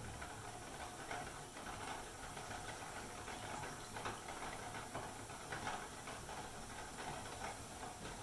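Pressure canner venting: a steady hiss of steam escaping from the open vent pipe as the water inside boils, building to a full vent before the weighted gauge goes on. A few faint light clicks sound through it.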